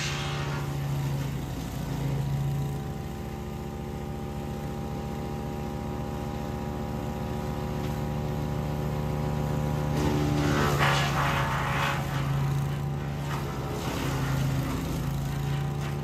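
Engine of a towable wood chipper running steadily at speed. About ten seconds in there is a louder rush of noise as brush is fed through and chipped, and a shorter one near the end.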